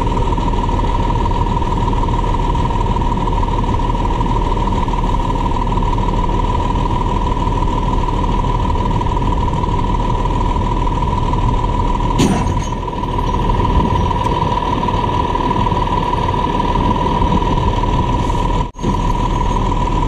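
Heavy-truck diesel engines running steadily, with a steady high tone over the engine noise, while a loaded concrete mixer truck is winched back onto the road by a rotator wrecker.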